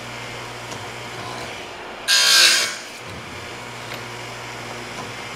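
Stihl USG chain sharpener's electric motor running with a steady hum. About two seconds in, the grinding wheel is brought down onto a chain tooth for one short, loud grind of about half a second.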